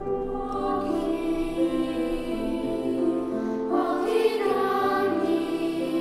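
Music: a children's choir singing a slow melody, coming in suddenly at the start.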